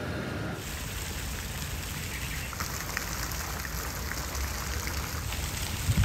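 Falling water pattering and hissing steadily, with faint light drips, starting about half a second in.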